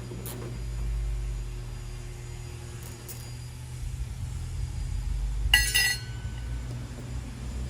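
A small piece of metal clinks once with a brief ring about five and a half seconds in, with a few faint ticks before it. A steady low rumble of wind on the microphone runs underneath.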